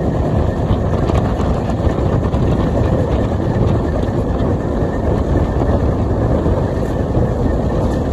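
Indian passenger train running at speed, heard from an open coach doorway: a steady, loud rushing rumble of wheels on track, mixed with wind on the microphone.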